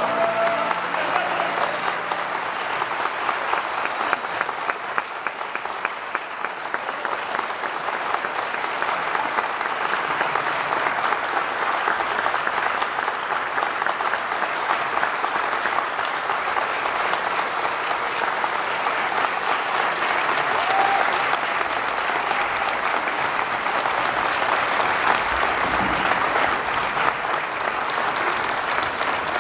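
Audience applauding steadily and at length, a dense unbroken clapping. The last held notes of the music fade out in the first couple of seconds.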